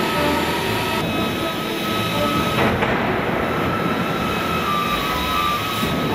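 Large eccentric mechanical stamping press of an automotive tandem press line running: a continuous dense machine noise with steady whining tones over it.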